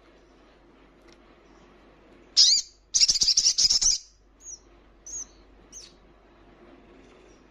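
Olive-backed sunbird calling: one sharp high call about two and a half seconds in, then a rapid, loud burst of high twittering lasting about a second, followed by a few faint short chirps.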